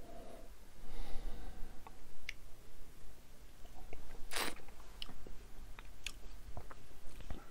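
Mouth sounds of a man tasting whisky: small wet clicks and chewing-like sounds as the spirit is worked around the mouth, with one short, louder slurp from the tasting glass about four and a half seconds in.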